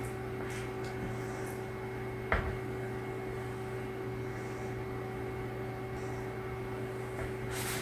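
A steady electrical hum, with a few faint handling sounds and one sharp knock about two seconds in.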